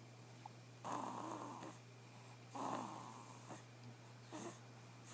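A sleeping baby snoring softly in a slow rhythm: two snoring breaths about a second and a half apart, then a fainter third one near the end.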